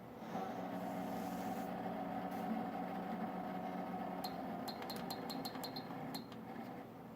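Koolance 985 Rev2.0 running with a steady hum made of several tones, the noise its owner suspects is a problem. It starts just after the beginning and cuts off about six seconds in, with rapid clicking ticks, about five a second, over its last two seconds.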